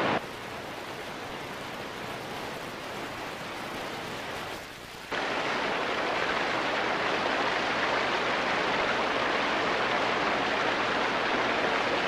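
Fast-flowing river water rushing steadily, quieter at first and then louder from about five seconds in.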